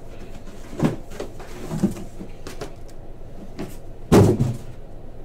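Boxes of trading cards handled on a tabletop: a few light knocks about a second apart, then one heavy thud about four seconds in.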